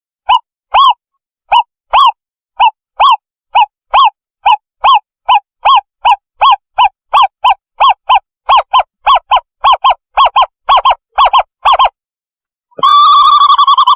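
Recorded owl decoy call: short, clear hooting notes repeated about two to three times a second, coming a little faster as they go on. After a brief break near the end, a long unbroken warbling call begins.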